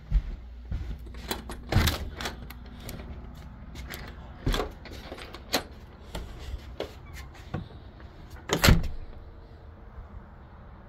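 Clicks and knocks of a door being opened and let go, then footsteps on a wooden porch deck, with the loudest knock a little under nine seconds in.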